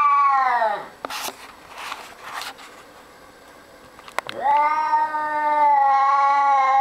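A 20-year-old domestic cat growling at another cat: two long, drawn-out yowling calls. The first trails off, falling in pitch, about a second in. The second starts about four seconds in and is held at a steady pitch for nearly three seconds.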